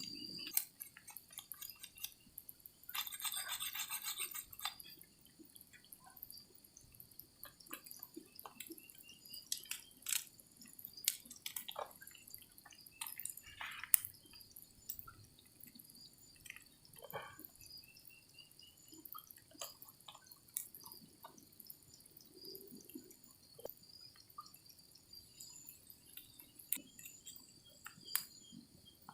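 Irregular small clicks and taps over a steady high insect trill, with a brief louder rustle about three seconds in.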